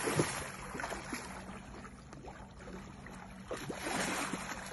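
A hooked redfish thrashing and splashing at the water's surface while being fought on a rod: a burst of splashing at the start and another, longer one about three and a half seconds in.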